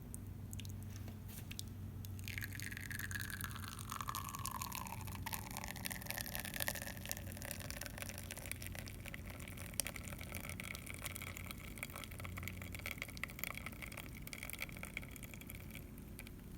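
Espresso dribbling and dripping from a La Pavoni lever machine's portafilter into a cup as the shot is pulled, with faint crackly spattering over a steady low hum. A thin tone slides down in pitch a couple of seconds in.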